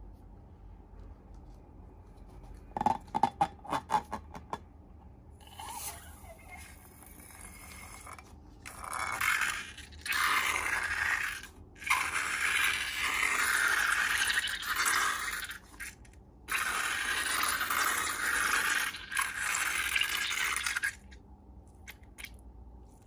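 Hands working slime-making materials: a quick run of sharp taps and clicks, then several long stretches of scraping and rustling that stop and start.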